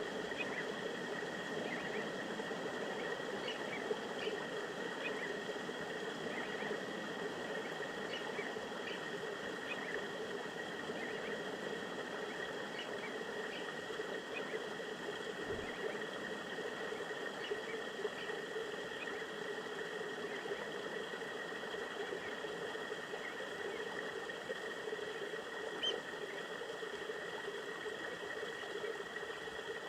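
Mountain river flowing steadily over rocks, an even rushing of water, with scattered short high chirps or ticks above it.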